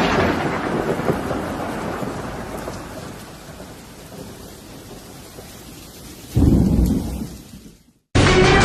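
Thunder over steady rain: a loud rumble that dies away over the first few seconds, a second low rumble about six and a half seconds in, then the storm fades out.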